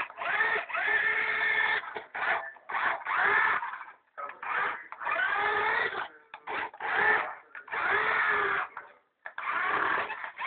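Small electric motor of a toy radio-controlled car whining in about eight short bursts, each up to a second or so long and rising in pitch as the motor spins up.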